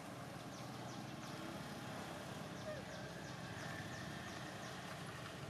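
Steady outdoor background noise: a low, even rumble with faint, short high chirps recurring throughout.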